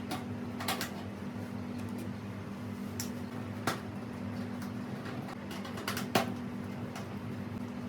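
A few sharp, scattered clicks and taps of computer case parts being handled while a graphics card is screwed in and the case panel fitted, over a steady low hum.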